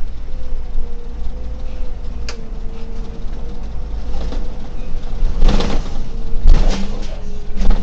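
Solaris Urbino 18 IV articulated city bus running, heard from the driver's cab, with low running rumble and a steady whine as it slows for a stop. There are several short, loud hiss-like bursts about halfway through and again near the end.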